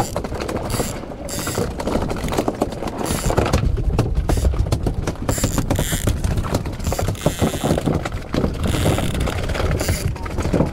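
A large conventional saltwater fishing reel cranked steadily to wind in line, its gears and pawl clicking rapidly and continuously.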